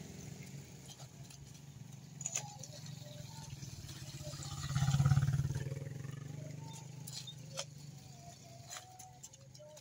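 Small motorcycle engine running, one bike passing close through the flooded road and loudest about halfway through, then fading. A few short sharp clicks or splashes sound in between.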